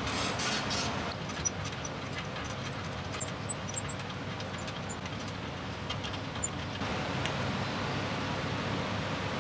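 Gas blowtorch flame hissing steadily, heating a rust-seized threaded bolt so that expansion breaks the rust seal. A thin high whistle in the first second gives way to a run of rapid high-pitched ticks that stops about seven seconds in.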